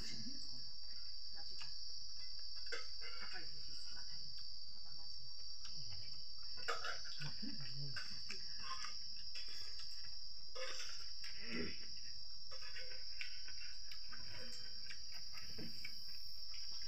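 Insects chirring steadily at a high pitch, with faint, irregular eating sounds over it: fingers mixing rice in a metal bowl, chewing and small mouth clicks.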